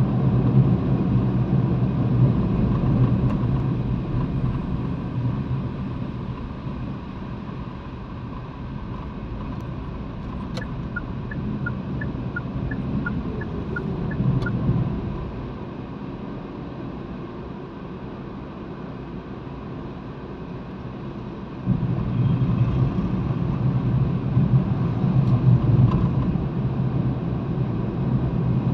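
Road noise inside a moving car in town traffic: a steady low rumble of engine and tyres that eases for a long stretch and then swells again sharply about two-thirds of the way through. In the middle, a short run of high, evenly spaced beeps alternates between two pitches.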